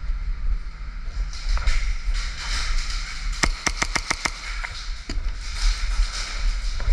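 Airsoft gun firing a quick string of about eight sharp shots, starting about three and a half seconds in and lasting under a second, over a steady low rumble and hiss.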